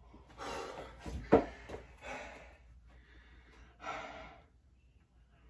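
A man catching his breath after a hard set of resistance-band exercise: heavy breathing in several separate gasps, with one short, sharper and louder burst about a second in.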